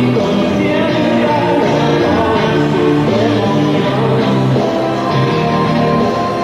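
Rock music with singing and guitar, playing steadily.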